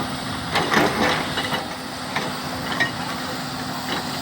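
Excavator's diesel engine running steadily, with a few sharp clanks and knocks over it, the loudest about a second in.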